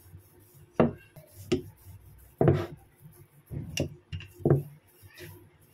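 Wooden rolling pin rolling out a stiff dough on a wooden board, with a short wooden knock at about five of the strokes, irregularly spaced.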